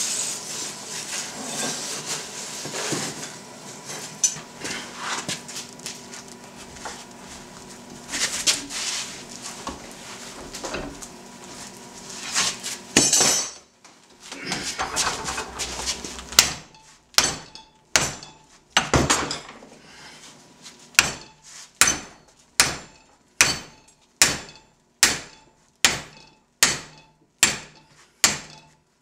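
Metal clattering and scraping while a hot steel bar is handled at the forge. From about halfway through come sharp hammer blows on the red-hot bar clamped upright in a bench vise, bending it. They start irregular and settle into a steady beat of a little more than one blow a second.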